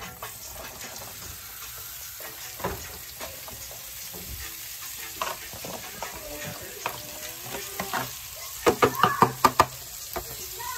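Sliced vegetables sizzling in hot butter in a frying pan as a spoon scrapes them out of a plastic bowl into the pan. A quick run of loud, sharp knocks near the end as the spoon strikes the bowl and pan.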